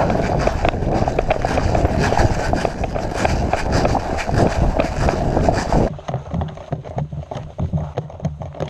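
Close, hurried running footsteps on a dirt trail with the jostle of carried gear. The sound is loud and dense, then stops abruptly about six seconds in and gives way to quieter steps and scattered clicks.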